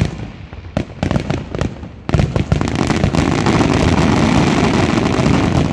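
Fireworks display: a few separate bangs in the first two seconds, then from about two seconds in a dense, continuous barrage of rapid bangs and crackling.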